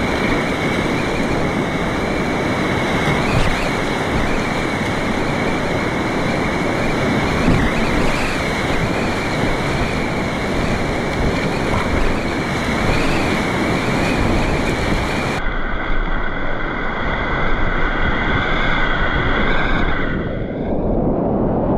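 Whitewater river rapids rushing steadily, with wind buffeting the microphone. About fifteen seconds in, the sound turns duller as its top end drops away.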